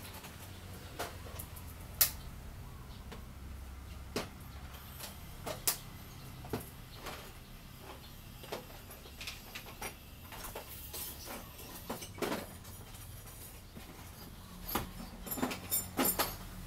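Hand tools and metal fasteners clicking and clinking at irregular intervals as a bolt is worked loose, over a low steady hum. The sharpest click comes about two seconds in, and a quick cluster of clicks comes near the end.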